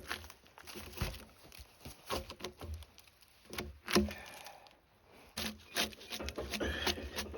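Bark being scraped and peeled off a spruce log: irregular scraping strokes and knocks of a tool on wood, with the bark coming away in small chunks.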